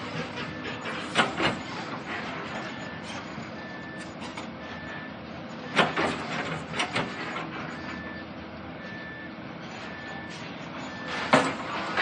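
Building demolition by heavy machinery: machines running steadily while a reversing alarm beeps at an even pace, with several sharp crashes of breaking material, the loudest near the end.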